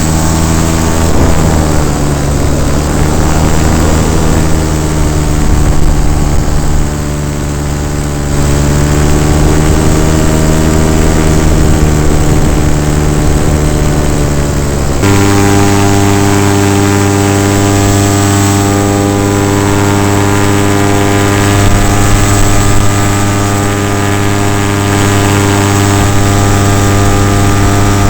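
Paramotor engine and propeller running, the engine note dipping and rising again twice, then switching abruptly to a steadier, different pitch about halfway through.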